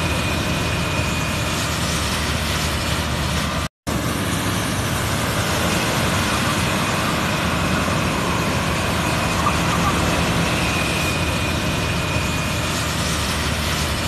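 Self-propelled corn harvester running steadily as it works through standing corn: a continuous engine drone mixed with the noise of the machinery, with a faint high whistle at times. The sound drops out abruptly for a split second about four seconds in.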